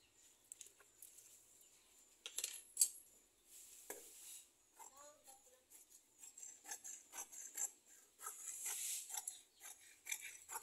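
Large tailor's shears cutting through woven fabric: a faint, uneven series of snips and blade clicks with soft swishes of cloth.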